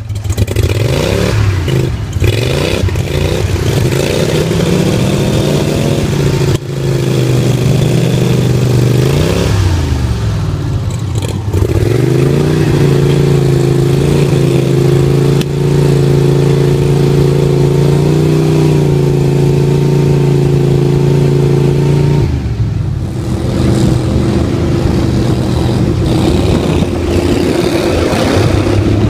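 Gator-Tail mud motor's air-cooled engine pushing a jon boat through shallow mud and water. It revs up and down repeatedly for the first ten seconds or so, then holds a steady high speed, and drops to a lower steady speed about seven seconds before the end.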